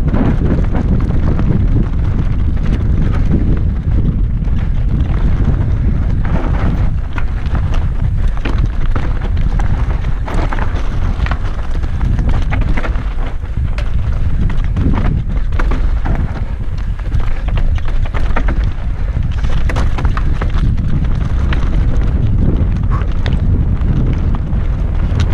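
Mountain bike descending a rough downhill trail at speed: wind buffeting the microphone, with the tyres crunching over loose stones and dirt and the bike rattling in frequent small knocks.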